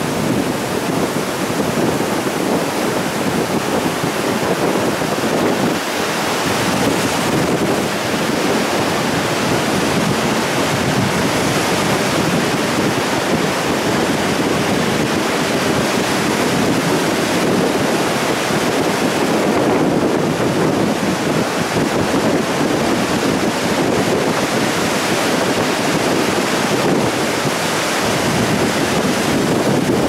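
Ocean surf breaking and washing in over the sand between pier pilings: a steady, loud rush of foaming water.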